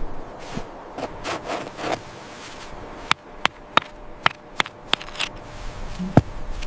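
Rubbing and scraping, then about seven sharp knocks at uneven intervals over three seconds, the last one the loudest.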